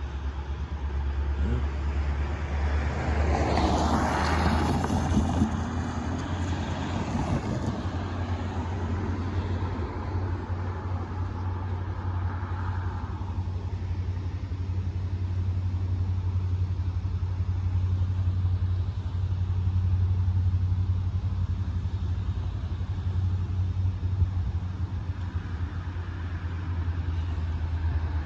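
Steady low rumble of a stopped Union Pacific gravel train's diesel locomotive idling. A road vehicle passes by about three to six seconds in.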